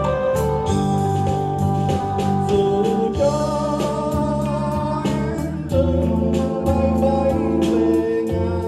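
Live band music: a male singer singing a Vietnamese ballad through a microphone and PA, over held chords and a drum kit keeping a steady beat.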